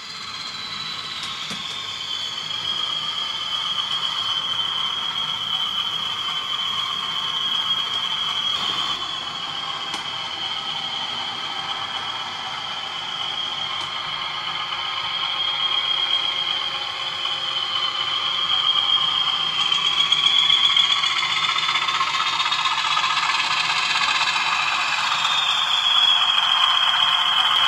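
A model Class 20 diesel locomotive running along the layout with a rake of coaches: a steady high whine that wavers a little in pitch, over the rattle of small wheels on the track, louder in the second half.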